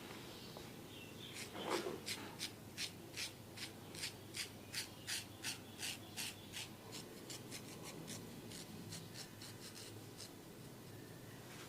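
Quick scratchy strokes rubbing over hair and scalp in a head massage, about two or three a second, turning fainter and quicker in the second half. One louder, lower sound about two seconds in.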